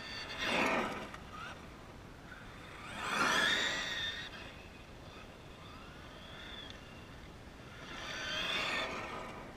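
Traxxas E-Revo RC monster truck with a Mamba brushless motor making three runs past, about half a second in, about three seconds in and near the end. Each swells and fades with a high whine from the electric motor and drivetrain that rises and falls in pitch, over tyre noise on rough asphalt.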